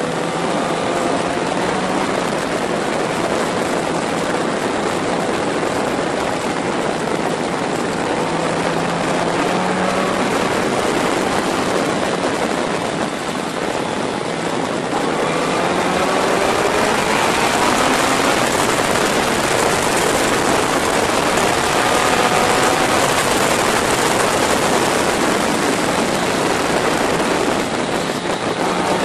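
Yamaha motorcycle engine running at road speed, its pitch climbing several times as it accelerates out of bends, under a heavy rush of wind noise.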